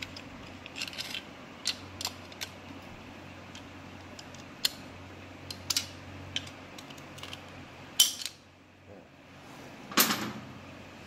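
Scattered metallic clicks and clinks of small gearbox parts being handled as the Norton Commando's gear-shift mechanism is dismantled, the spring unhooked and the shaft drawn out. There are two sharper knocks, about eight and ten seconds in, and the second rings briefly.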